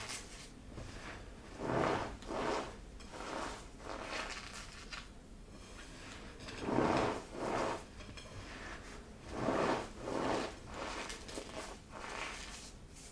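Dried glittered cornstarch paste being crushed, in a series of short gritty swells, each about half a second long and mostly in pairs, with quieter rustling between them.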